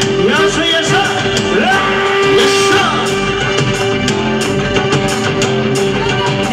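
Live dance music from a wedding band: a saxophone playing ornamented melody lines and held notes over a steady drumbeat, with singing.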